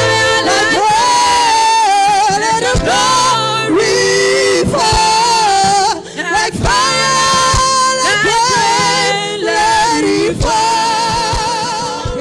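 Worship music: a voice singing long, wavering held notes over sustained backing.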